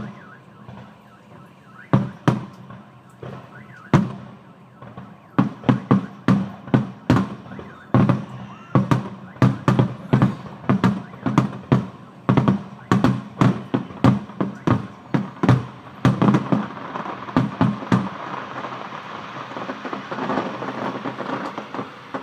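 Fireworks going off close by: sharp bangs, a few spaced ones at first, then a fast string of about two a second for over ten seconds, giving way near the end to a dense crackling.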